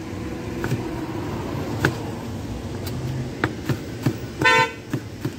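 Chef's knife chopping carrot on a cutting board: a few sharp, scattered taps over a steady low rumble. A car horn toots briefly about four and a half seconds in, the loudest sound.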